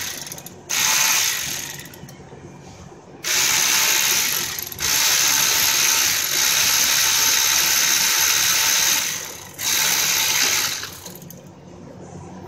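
Cordless power ratchet running in five bursts, the longest about four seconds, with short pauses between them.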